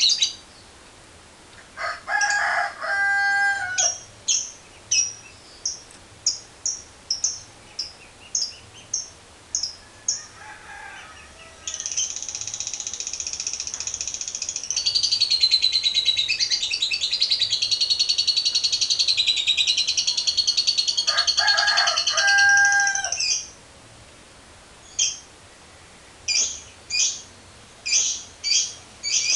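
Lovebird calling in short, sharp high chirps, then about twelve seconds in breaking into a long unbroken trilling chatter (the 'ngekek panjang') that lasts about eleven seconds before returning to single chirps. Twice a lower, drawn-out call sounds behind it.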